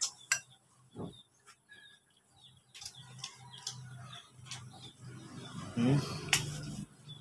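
Close-miked eating sounds: chewing with wet lip smacks and sharp mouth clicks, scattered unevenly with a few loud ones, over a low hum.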